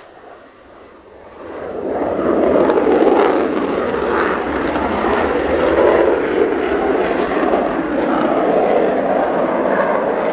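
Jet engine of a Mitsubishi F-2 fighter, running loud as the aircraft comes close. The roar swells about a second and a half in and then holds steady.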